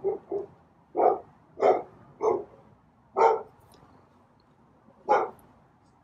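A series of seven short, sharp animal calls at irregular spacing, loud and close.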